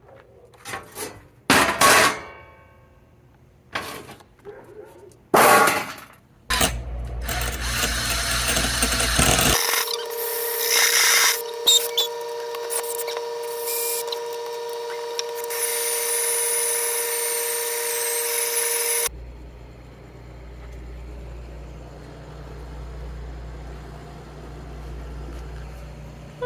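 A handheld power tool running in a long steady burst of about twelve seconds, with a steady whine, cutting or drilling into the laptop's parts during a hinge repair; it is preceded by several sharp knocks and clicks and stops suddenly. A fainter low hum follows.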